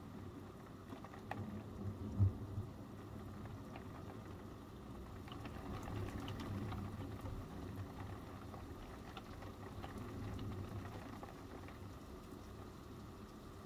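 Steady rain pattering, with a low thump about two seconds in and low rumbles swelling around six seconds in and again near ten, typical of distant thunder.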